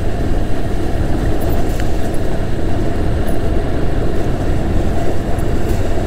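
Steady low rumble of a Honda Hornet motorcycle being ridden at about 35 km/h, heard through a lavalier microphone inside a helmet with the visor closed.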